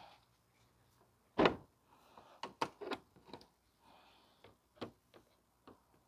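Plastic push clips and trim on a car's front bumper being pried and pulled off: one sharp snap about a second and a half in, then several lighter clicks and knocks.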